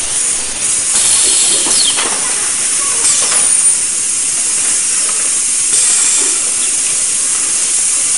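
Ultrasonic rotary welding head running along a solar absorber plate: a loud, steady high-pitched hiss, with a couple of brief falling whines in the first few seconds.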